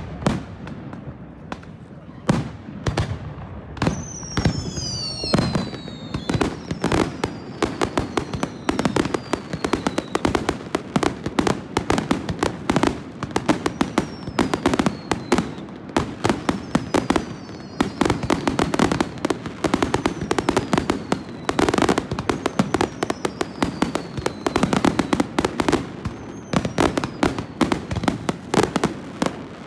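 Aerial fireworks display going off continuously: rapid bangs and crackling reports from shells and salutes, with several falling whistles among them, a cluster of them about four seconds in.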